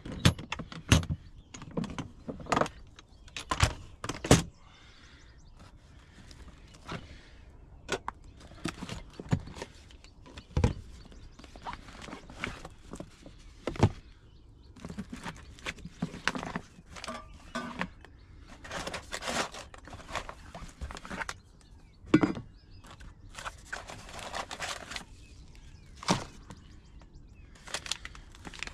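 Latches and lid of a Front Runner plastic storage box being opened and handled: a quick string of sharp clicks and knocks. Scattered knocks follow, with stretches of rustling as clear zip pouches and packets are taken out.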